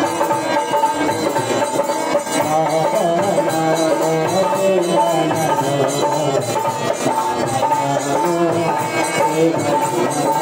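Music with a steady beat and a wavering melody.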